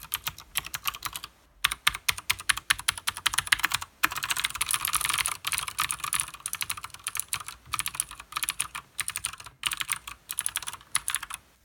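Leopold FC900R mechanical keyboard with clicky Cherry MX Blue switches and PBT keycaps being typed on fast, in quick runs of keystrokes broken by short pauses. About four seconds in the keys are hit in a dense, near-continuous flurry, and the typing stops right at the end.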